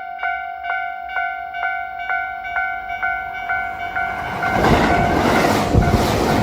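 Japanese level crossing alarm in Tobu's standard tone, ringing about twice a second. About four and a half seconds in, a train arrives and passes over the crossing, its rumbling noise becoming the loudest sound and half-covering the alarm.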